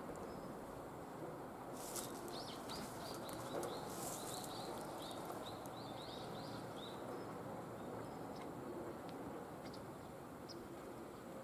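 A bird gives a run of quick, repeated high chirps, about three a second, starting about two seconds in and stopping a few seconds later, over a steady low background of outdoor noise.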